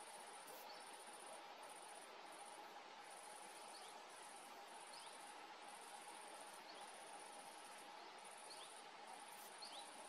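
Faint, high-pitched insect trilling, like a bush cricket, in stretches of about a second with short breaks, over a faint steady hiss and hum. A few faint short falling chirps sound now and then.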